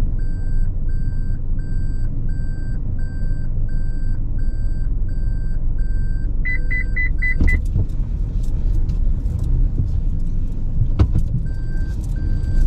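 Slow-moving car's low engine and road rumble with a steady electronic warning beep repeating a little over twice a second. About six and a half seconds in, the beeping changes to five quicker, higher beeps, followed by a few clicks. The slower beeping starts again near the end.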